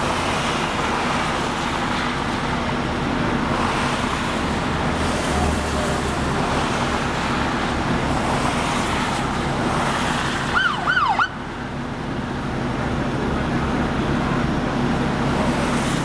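Steady highway traffic noise from cars passing below, with a short police siren burst about two-thirds of the way through: three quick rising-and-falling sweeps lasting under a second.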